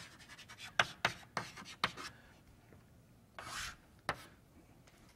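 Quiet run of light taps and scratchy rubs, thick in the first two seconds, then a soft breathy rustle and one more tap.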